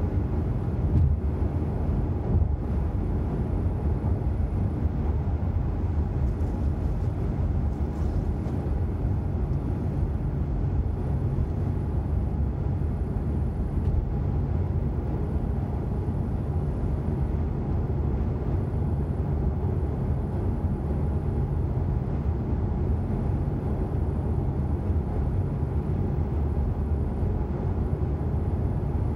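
Steady low road noise inside a car's cabin while it cruises on an open dual carriageway: tyre and engine noise heard through the body of the car.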